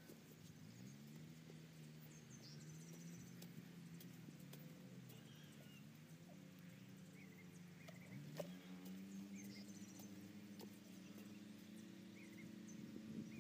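Faint drone of a distant engine, its pitch rising and falling slowly, with a soft knock of a digging spade in the soil about eight seconds in.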